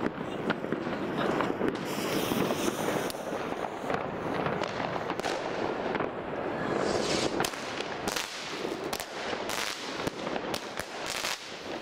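Geisha Fireworks 'Sky Evil' firework cake going off. A few seconds of steady rushing hiss give way, about seven seconds in, to a quick run of sharp cracks and pops as its shots fire.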